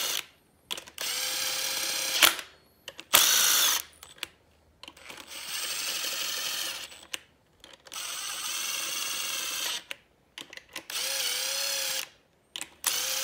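Makita cordless driver running main-cap bolts down into a Honda engine block, snugging them without tightening. It goes in about six short runs of a second or two each, with brief pauses between bolts.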